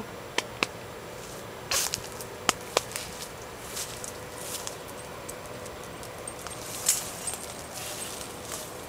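Scattered crackles and snaps of dry leaves and twigs underfoot or against branches in brush. A few sharp clicks come in the first three seconds and another near seven seconds, over a steady outdoor hiss.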